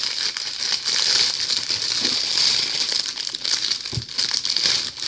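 Plastic bag crinkling continuously as it is handled and pulled off a boxed case.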